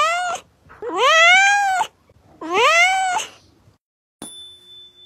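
A cat meowing: three drawn-out meows, each rising then falling in pitch, the middle one about a second long. Near the end a click is followed by a steady electronic tone.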